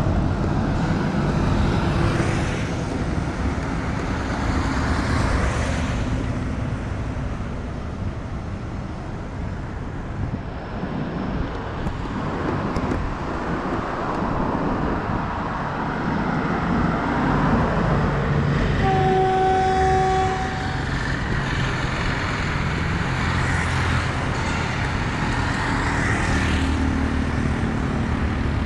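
Road traffic passing on a busy street, cars and motorcycles going by one after another. About two-thirds of the way through, a horn sounds once for about a second and a half.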